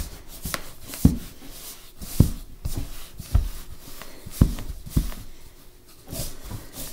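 Hands squeezing and mixing a stiff, dryish flour dough in a mixing bowl: soft scuffing and rustling, with a dull thump about once a second as the dough is pressed down and the bowl knocks on the board.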